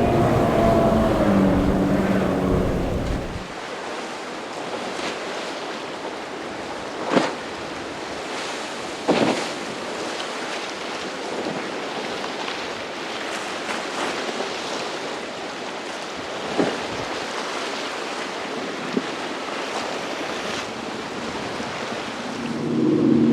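A motorboat engine running, which drops away about three seconds in. Then the steady rush of surf and wind, broken by a few sharp knocks. An engine comes back up near the end.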